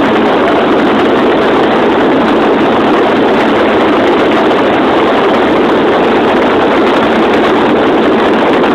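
Radio-controlled model airplane in flight, heard through a cell phone taped under its fuselage: a loud, steady rush of propeller and wind noise.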